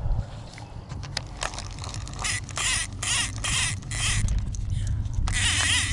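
Fishing reel cranked in short rasping strokes, about five in a row, followed by handling noise near the end.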